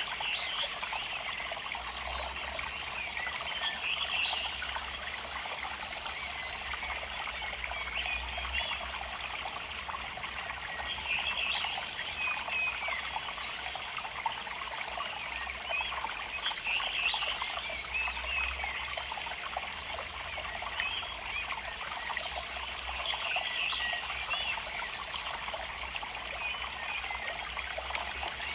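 Running water trickling steadily, with birds chirping and trilling again and again over it.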